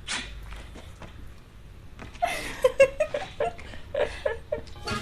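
A person's voice in short, overacted bursts: a sharp breathy burst right at the start, then a quick run of short loud vocal bursts from about two seconds in.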